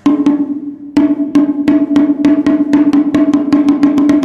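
Small Xoan drum beaten in an accelerating opening roll: two quick strokes, a pause of under a second, then strokes that come ever faster, the drum ringing steadily under them.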